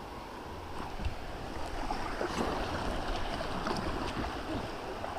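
Water splashing and sloshing around a kayak on a flowing river, getting louder about a second in, with small sharp splashes and drips over the steady rush of the current.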